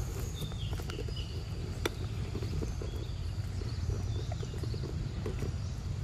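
Macaque chewing and smacking on a soft, ripe mango: a string of small wet clicks, with one sharper click about two seconds in, over a steady low rumble. Short high chirps sound in the background.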